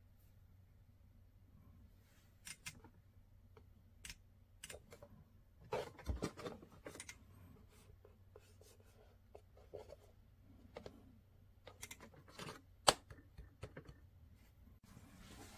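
Hands handling and touching the metal-and-plastic underside of a tactile AAC communicator: scattered faint clicks, taps and rubbing, busiest around the middle, with one sharper click later on.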